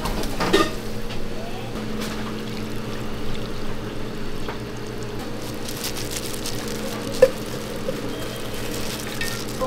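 Wet cooked glass noodles slapping into a stainless steel bowl, then sauce being poured over them, over a steady kitchen hum, with one sharp knock about seven seconds in.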